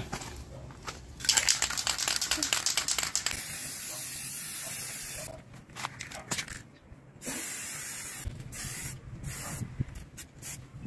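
Aerosol spray paint can rattling quickly as it is shaken, then spraying: one long steady hiss followed by a run of short bursts with gaps between them as paint goes onto a motorcycle wheel hub.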